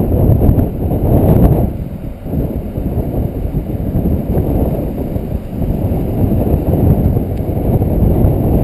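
Wind buffeting the microphone: a loud, gusty low rumble that rises and falls, with a brief lull about two seconds in.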